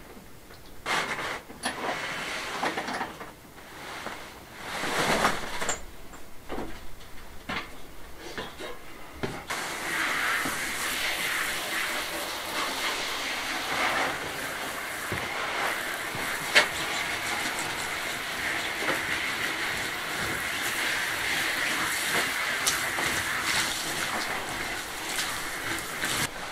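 Large canvas sun shade rustling in irregular swishes as it is pulled down onto a table. From about ten seconds in, a garden-hose spray gun hisses steadily as water is sprayed onto the cloth.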